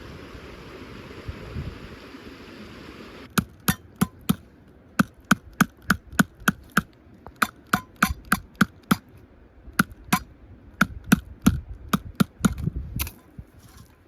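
Rapid series of hard, sharp strikes from a hand tool, about three a second with short pauses, each with a brief ring. They start about three seconds in, after a steady wind-like rush, and stop shortly before the end.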